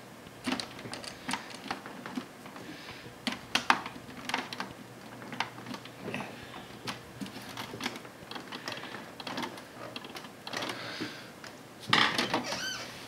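Screwdriver driving a screw back into the plastic case of an Epson XP-205 printer: irregular light clicks and scrapes. A louder rustle of the printer's plastic body being handled comes near the end.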